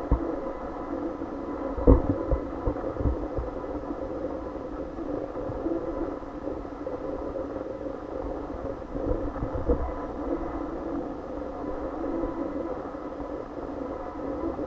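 Steady low background hum, with a few dull thumps; the loudest thump comes about two seconds in.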